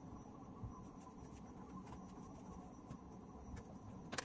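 Faint handling noise of cables being unplugged and plugged in behind radio equipment, with a sharp click near the end.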